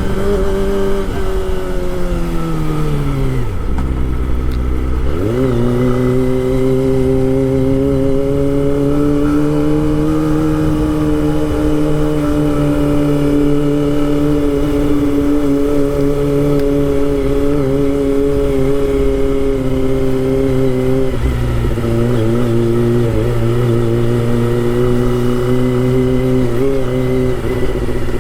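Kawasaki Ninja ZX-25R's 250 cc inline-four engine on the move: the revs fall for about four seconds, climb sharply again, then hold steady at cruising speed. About two thirds of the way through the note drops to a lower steady pitch.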